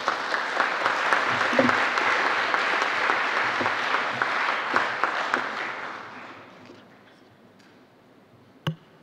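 Audience applauding, dying away after about six seconds. A single sharp click near the end.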